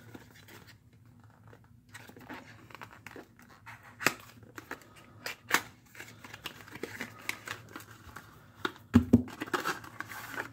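Hands opening a small cardboard speed-cube box: flaps sliding and scraping against each other, with scattered sharp clicks and taps, and a louder thump near the end.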